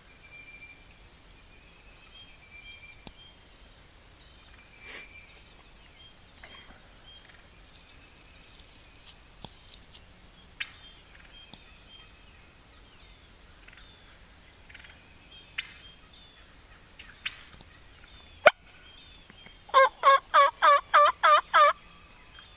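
A wild turkey gobbling near the end, a loud, fast rattling gobble of about eight pulses. A single sharp click comes about a second before it, and small birds chirp faintly throughout.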